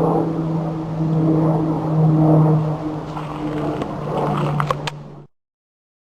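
Bees buzzing in a steady low hum, with a few clicks and crackles mixed in, cutting off abruptly about five seconds in.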